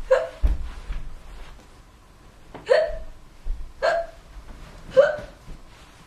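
A person hiccuping four times, each a short, sudden voiced gulp. The first comes at the start, and the last three follow about a second apart.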